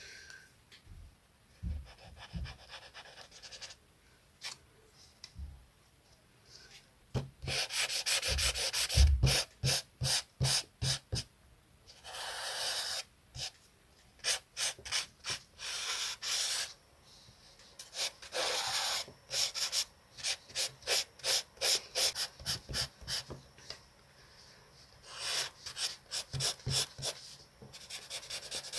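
Colouring strokes on paper: scratchy rubbing in quick back-and-forth runs of about three strokes a second, with short pauses between the runs.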